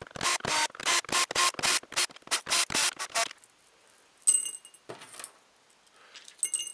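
Cordless drill-driver backing screws out of a plastic speaker housing: a quick run of short clicking bursts, about four a second, for about three seconds. Later come two brief light metallic clinks.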